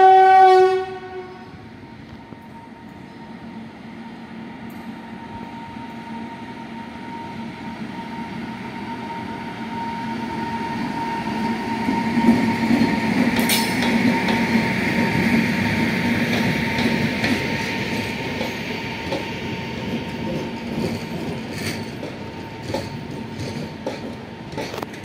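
An Indian Railways electric locomotive sounds its horn once, about a second long, at the start. The passenger train then comes in and rolls past, its running noise rising to its loudest around the middle as the locomotive goes by. Near the end the coach wheels click over the rail joints.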